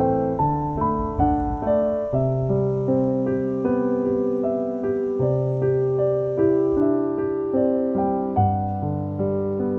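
Background piano music: a gentle melody of steady, evenly paced notes.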